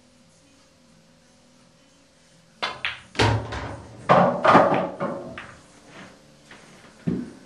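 A pool shot: the cue tip clicks against the cue ball, the balls clack together, and an object ball drops heavily into a pocket. A rattling clatter of the pocketed ball follows and dies away, with one more knock near the end.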